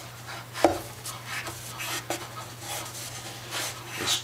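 Cloth rag wiping cleaner off the dirty metal top of a pressure chamber around its safety valve: a run of short rubbing strokes, with one sharp knock a little over half a second in.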